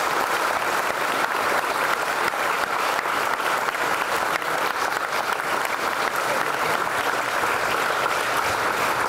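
Applause from a crowd, many hands clapping steadily.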